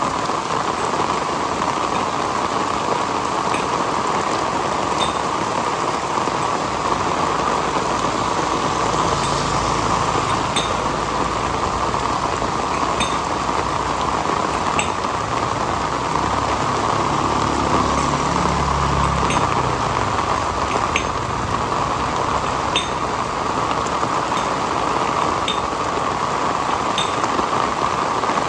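Heavy rain falling steadily, with single drops now and then ticking sharply on a hard surface. A low rumble comes in about a third of the way through and fades out about two thirds through.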